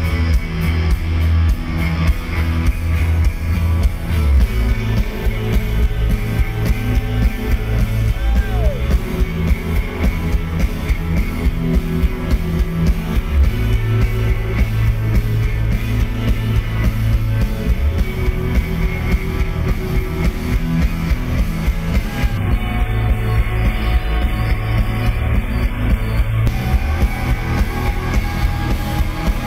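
Live rock band playing: electric guitars over bass and a drum kit keeping a steady beat.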